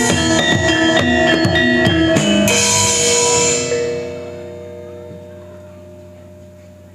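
Javanese gamelan ensemble playing the final bars of an opening piece: quick, even strikes on pitched metal keys over drums, then about two and a half seconds in a closing crash with a cymbal, after which the instruments ring on and slowly fade.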